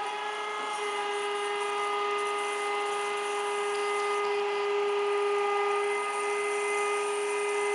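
ELB automatic hydraulic surface grinder running, its table traversing under hydraulic power. A steady high machine whine holds one pitch.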